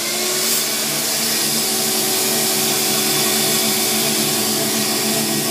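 Small shop vac with a multi-tube rubber brush attachment, reaching full speed right at the start and then running steadily, a motor hum under a strong airy hiss as it sucks up sawdust.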